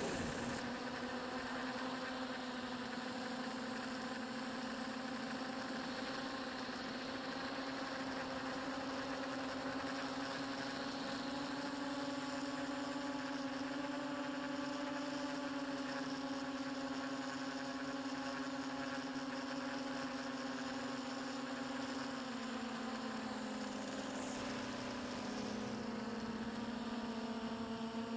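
Motor and propeller of a small radio-controlled aircraft heard through its onboard camera: a steady hum with a buzz of overtones, dropping a little in pitch a little over twenty seconds in and climbing again near the end as the throttle changes.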